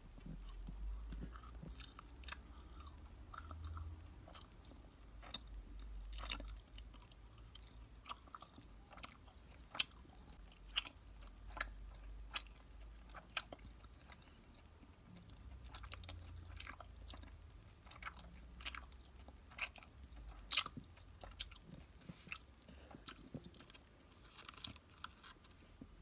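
A person biting and chewing a crunchy snack: irregular sharp crunches, at times several in quick succession, over a low rumble.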